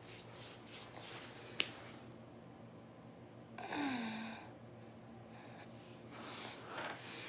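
Soft breathing and sniffs close to the microphone, with a single sharp click just before two seconds in. About four seconds in comes one short sigh that falls in pitch.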